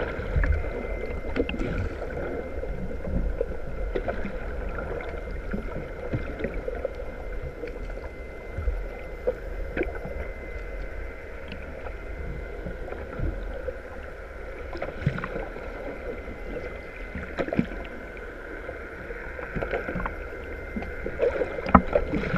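Muffled underwater sound picked up by a camera below the surface: a steady low rumble with faint steady tones, and many small scattered clicks and taps of water against the housing.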